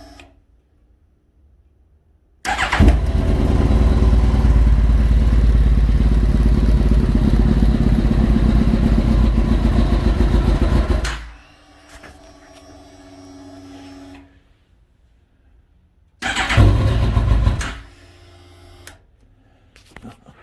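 2008 Kawasaki ZX-10R's inline-four engine catching about two and a half seconds in and running steadily for about eight seconds before cutting off. The fuel pump then hums briefly as it primes. Near the end the engine fires again for a short burst of about a second and a half.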